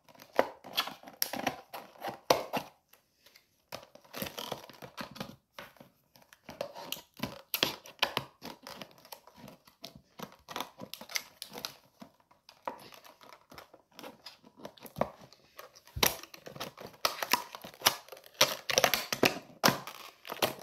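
Plastic packaging crinkling and being snipped with scissors, in irregular bursts of rustling and clicks with short pauses.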